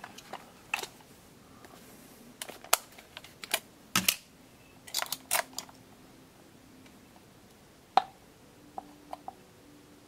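Sharp plastic clicks and knocks of AA batteries being pressed and shifted in the battery compartment of a Casio VL-1 keyboard, in irregular bursts, loudest about four and eight seconds in. The batteries are being checked because the keyboard will not come on.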